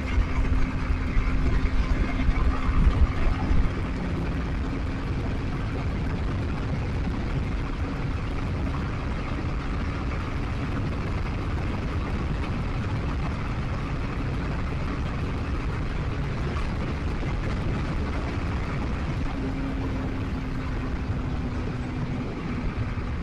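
Motorcycle riding on the road, heard from the rider's microphone: a steady engine hum under heavy low wind and road rumble, gustier for the first few seconds.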